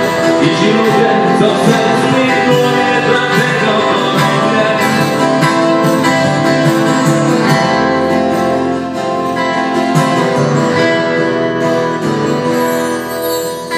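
Live instrumental passage by two acoustic guitars and an electric bass guitar.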